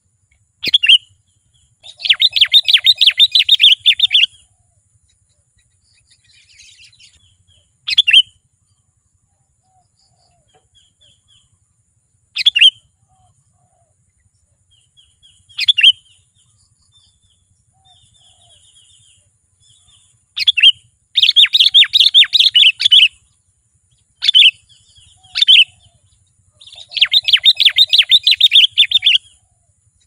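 Sooty-headed bulbul calling: single sharp notes every few seconds, and three rapid chattering runs of about two seconds each, near the start, about two-thirds in, and near the end.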